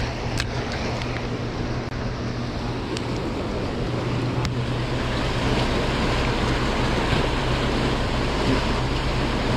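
Turbulent water churning and rushing in a dam's tailrace, the outflow from a running turbine, with a steady low hum underneath and a few light clicks.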